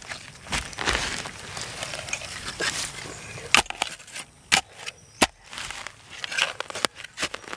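A small metal spade scraping and digging into loose soil, with rasping scrapes for the first few seconds and then a series of sharp knocks as the blade strikes the ground.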